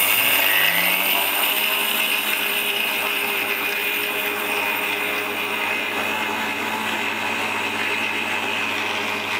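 Electric mixer grinder running at full speed, its small steel jar grinding sugar into powder: a loud, steady motor whine with a low hum.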